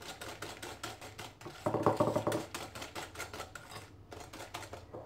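Wire whisk beating egg yolks and sugar by hand in a glass bowl: a rapid, rhythmic clicking as the wires strike the glass, louder for a moment about two seconds in.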